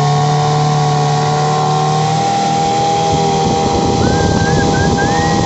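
Mariner 15 hp outboard motor running steadily at cruising speed, pushing the boat with a constant engine note. From about three seconds in, a rough rushing noise of water and wind rises over the engine.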